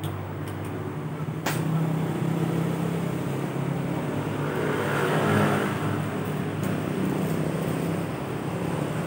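An engine running steadily with a low hum, swelling in noise briefly about halfway through. A single sharp click comes about a second and a half in.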